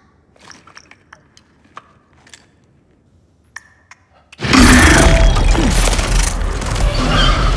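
Movie soundtrack: a few faint, scattered clicks and creaks in a tense hush, then about four and a half seconds in a sudden, loud, dense crash-and-rumble with a deep low end that keeps going, the onset of a monster attack.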